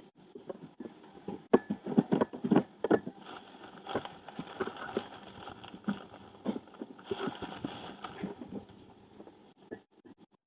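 Irregular crackling, rustling and light taps: plastic food-prep gloves crinkling as hands break up potato pieces on a plate.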